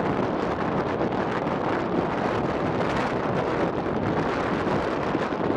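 Strong wind buffeting the microphone: a steady, rushing noise that covers everything else.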